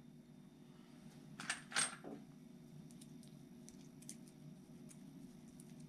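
Small metal RC parts clicking and clinking in the fingers as a ball stud is unscrewed from a servo horn: two sharp clicks about a second and a half in, then faint scattered ticks.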